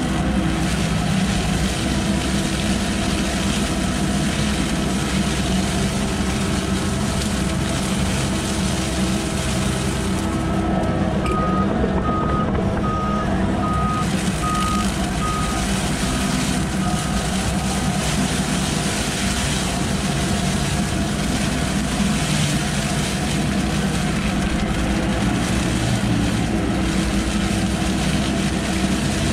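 Volvo excavator's diesel engine running steadily, driving a hydraulic mower head that cuts through tall grass and reeds with a constant hiss. Partway through, the cutting hiss thins and a high warning beep sounds about every half second for several seconds: the excavator's travel alarm.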